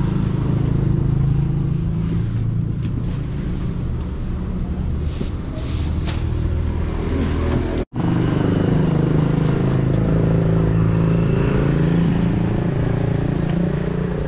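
Motor vehicle engine noise, a steady low drone, with plastic wrapping crinkling in the first half. The sound briefly cuts out about eight seconds in and then goes on much the same.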